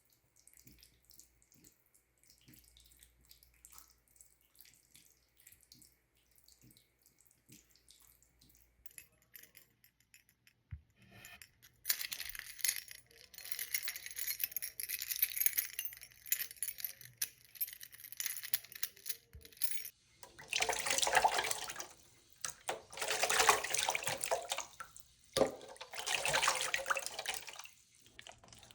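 Running water, as from a tap into a sink. Faint scattered clicks and handling noises come first. Then a thin stream runs steadily for several seconds, followed by three louder, fuller gushes of water a few seconds apart.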